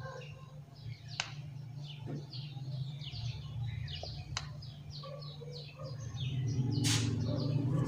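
Small birds chirping in quick, short falling notes over a steady low hum, with two sharp clicks and a louder noisy burst near the end.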